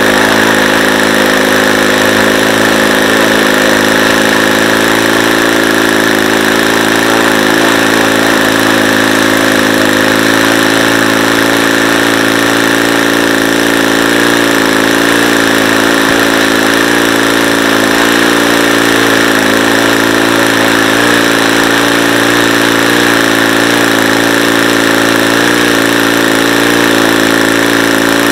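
Saito FA-90TS four-stroke flat-twin glow engine running steadily on a test stand, turning a 14x6 wooden propeller, its pitch wavering slightly.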